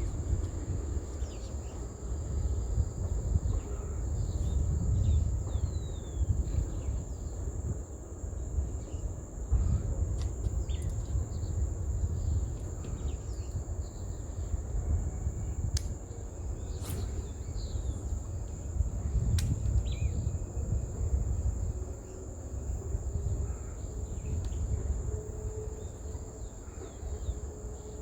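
Wind buffeting the microphone as a rumble that rises and falls, under an insect's steady high-pitched drone. Short bird chirps come and go, and a few sharp clicks sound around the middle.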